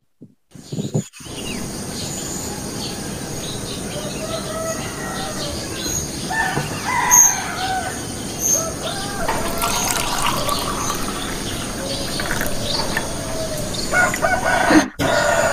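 Rural morning ambience: after a second of near silence, a rooster crows and small birds chirp over a steady background hiss.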